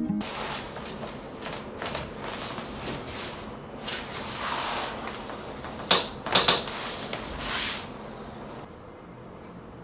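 Rustling and handling on a chiropractic treatment table, with a quick cluster of two or three sharp cracks about six seconds in during an adjustment.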